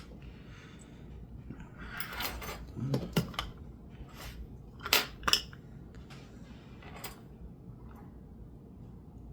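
Light metallic clicks and clinks of small metal objects being handled, with a cluster of clicks about two to three seconds in and two sharper, louder clicks about five seconds in.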